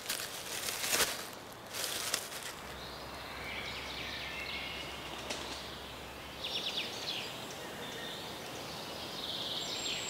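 Forest ambience: a few rustling scuffs in dry leaf litter in the first couple of seconds, then soft, scattered chirps and a short rapid trill from small birds over a quiet background hiss.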